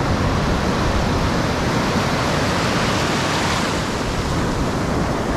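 Ocean surf breaking and rushing in as foaming water around the legs: a steady, loud wash of noise that swells a little about halfway through.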